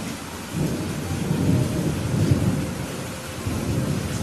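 Steady rain hiss with a long, low rumble of thunder that builds about half a second in, swells twice and fades away near the end.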